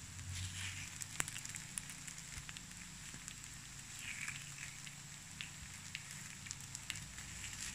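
Takoyaki batter sizzling and crackling in the hot wells of an electric takoyaki pan, with scattered light clicks of a wooden skewer turning the balls. One sharper click comes about a second in.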